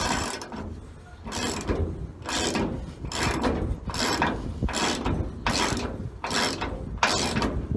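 Ratchet wrench clicking in repeated strokes, about one a second, as it backs out a door hinge bolt with a nut welded onto it; the seized bolt has just broken free.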